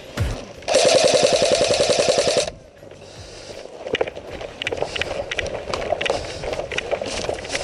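Airsoft electric rifle firing one long full-auto burst of about two seconds, a rapid even buzz of shots, followed by quieter scattered clicks and rustling of movement.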